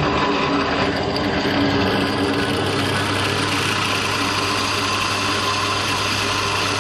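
Drill press running steadily, its twist bit boring into a steel bar clamped in the drill-press vise, with a constant motor hum.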